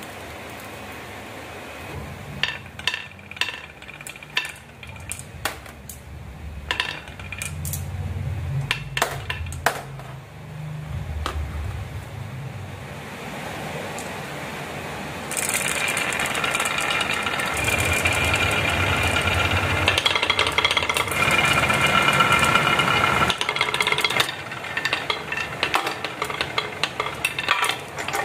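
Marbles rolling and clacking down a wooden marble run: a low rolling rumble with scattered sharp clicks, then about halfway a louder, brighter rattling, ringing roll for several seconds, ending in a run of quick clacks.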